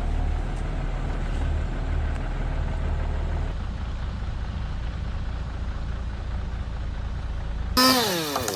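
Heavy machine's diesel engine running with a steady low hum that eases slightly partway through. Near the end a sudden, louder sound cuts in, its pitch falling steeply.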